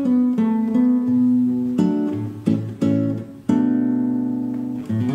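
Acoustic guitar fingerpicked, plucking notes and chords that ring on, as the instrumental intro before the vocal comes in; a brief pause about three and a half seconds in before the next chord.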